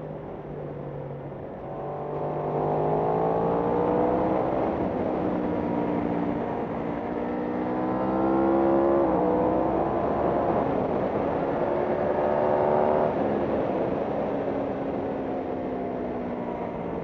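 Racing motorcycle engine under hard acceleration, its pitch climbing steadily, then dropping sharply at an upshift about halfway through. It climbs again, then falls away as the throttle closes near the end.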